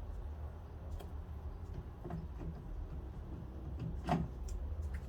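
Scattered light clicks of metal transmission parts and tools being handled, with one sharper clink about four seconds in, over a low steady hum.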